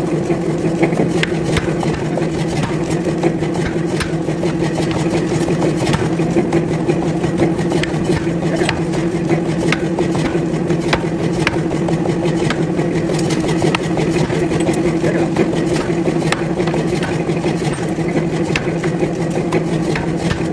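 Forging machinery running with a steady, even hum, with irregular sharp knocks and clanks of metal being worked scattered through it.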